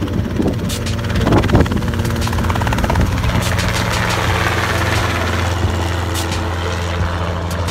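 Small helicopter lifting off and climbing away: the engine and rotor hum steadily while the rush of rotor wash swells loudest about halfway through.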